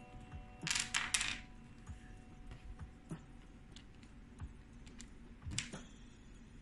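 Small wooden T-shaped puzzle pieces clicking and clacking against each other and the wooden tray as they are lifted out of the cube by hand. There is a quick cluster of clacks about a second in, another near the end, and lighter taps in between.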